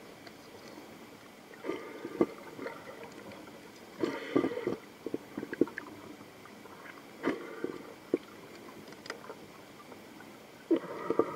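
Underwater sound picked up by a submerged camera: irregular gurgles and sharp clicks over a low steady hiss, in clusters about two, four and seven seconds in and again near the end.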